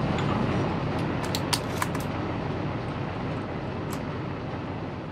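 Steady low rumble of a vessel at sea, with a few sharp clicks about one to two seconds in and one more near four seconds.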